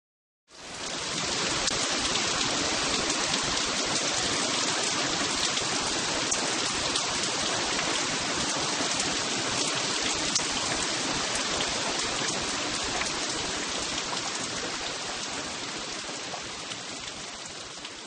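Television static hiss: an even noise with faint crackles that slowly fades toward the end.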